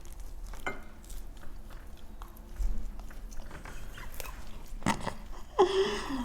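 People biting and chewing lamb chops off the bone: small wet clicks and chewing noises, with a short vocal sound near the end.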